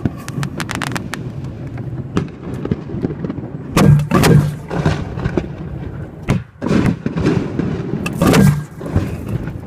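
Fireworks shells firing from mortar tubes and bursting, heard from only a few feet away: a quick run of crackles about a second in, then heavier blasts about four, six and a half, and eight seconds in.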